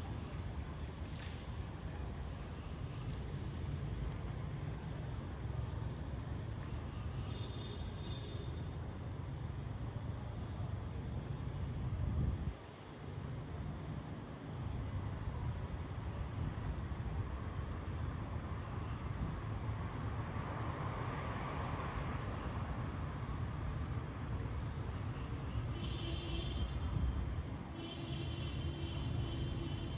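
Crickets chirping in a steady, high, pulsing trill over a low rumble. A soft swell of noise rises and falls a little past the middle, and short tonal calls come once near the start and a couple of times near the end.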